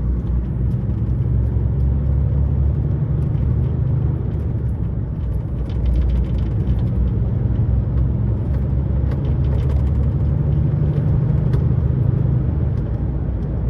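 Lorry's diesel engine and road noise heard from inside the cab while driving, a steady low rumble with a few faint rattles.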